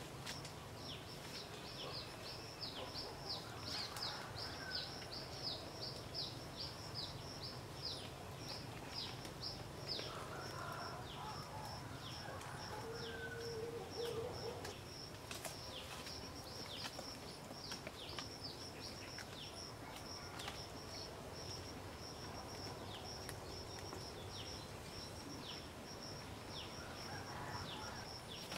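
Forest wildlife ambience: a steady high-pitched buzz with a long run of quick falling chirps, two or three a second, and a few faint knocks as bamboo poles are set in place.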